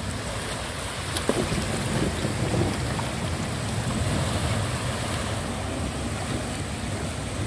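Steady wash of surf with wind buffeting the microphone.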